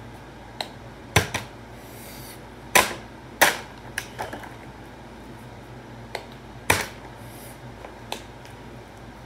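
Plastic water bottle being flipped and landing on a tile floor, a run of sharp knocks and clatters as it hits and tips over. There are four loud knocks, about a second in, near three seconds twice, and near seven seconds, with lighter taps between.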